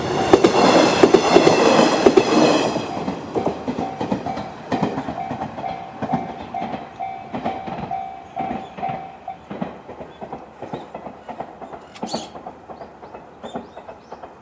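Two-car KiHa 110 series diesel railcar passing over a level crossing: loud for the first couple of seconds, then its wheels clacking over the rail joints as it pulls away and fades. The crossing's electronic warning bell, the JR standard tone, rings in steady pulses and stops about nine seconds in.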